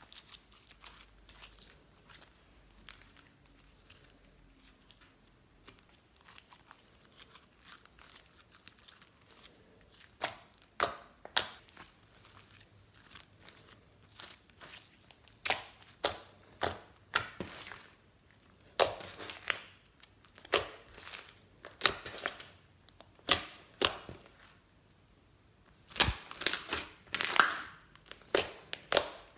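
Hands squeezing, kneading and stretching slime, with sticky clicks and pops. Faint for about the first ten seconds, then the pops come louder and more often in quick clusters.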